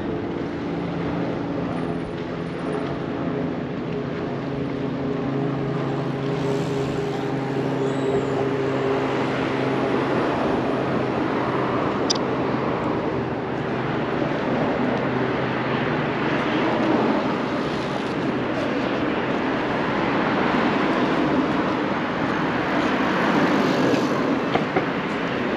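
City road traffic: a vehicle engine hums steadily for the first ten seconds or so, then fades into the louder noise of passing traffic.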